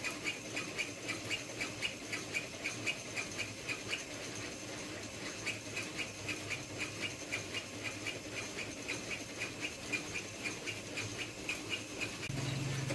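Home-built CNC saw cutting steel, its blade making short scraping strokes about four a second, with a brief pause about four seconds in. A low steady hum starts near the end.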